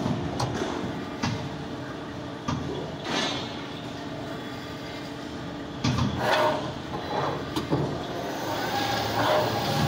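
Goodway GLS-150 CNC lathe running a program: a steady motor and hydraulic hum, with a few louder mechanical surges about three, six and nine seconds in as the tool turret and axes move.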